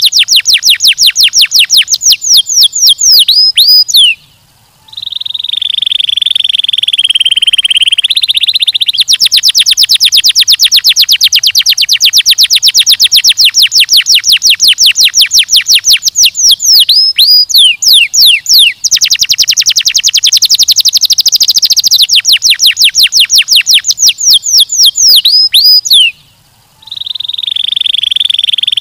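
Domestic canary singing: long, very rapid trills of short, high repeated notes, each run ending in a few slower down-slurred whistles. Then comes a brief pause and a lower, steady rolling phrase. The whole sequence comes round twice.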